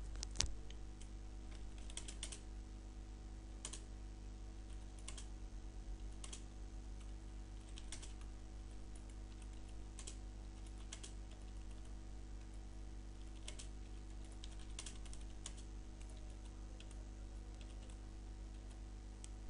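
Computer keyboard being typed on in sparse, irregular keystrokes as a sentence is entered, over a faint steady hum.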